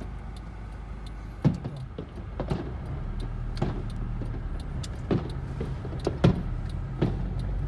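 Fireworks banging and popping at uneven intervals, about six sharp reports, the loudest about a second and a half in and again near the end. They are heard from inside a moving car over the steady hum of its engine and road noise.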